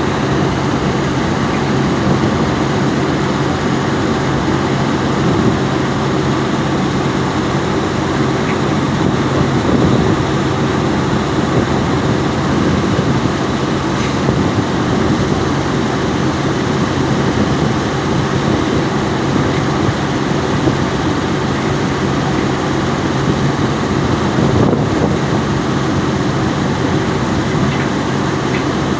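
Diesel engine of a Volvo EC210B hydraulic excavator running steadily under work, a constant low hum that swells slightly a couple of times.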